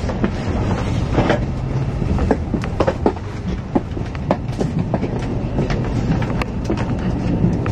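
Shinkansen bullet train heard from inside a passenger car: a steady low rumble of the train running, with scattered light clicks and knocks.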